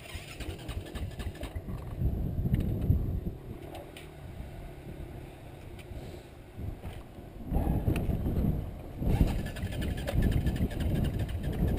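Dirt bike engine running at low speed, a rough low rumble that gets louder about two seconds in and again from about seven and a half seconds on.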